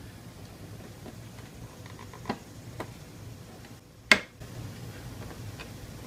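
Plastic side panel of a Yamaha FJR1300 being worked off its catch: a few light clicks, then one sharp snap about four seconds in.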